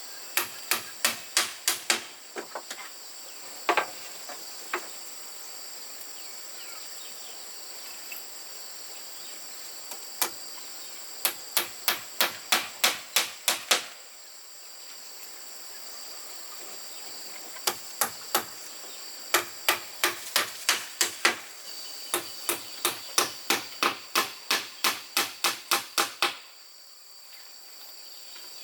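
Runs of rapid hammer blows, about four a second, with pauses between the runs, as when nailing boards during building work. A steady high buzz of insects goes on behind.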